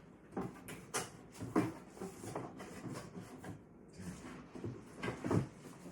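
Tools being handled and fitted back into place: an irregular run of knocks, clicks and rubbing, with the loudest knocks about a second and a half in and near the end.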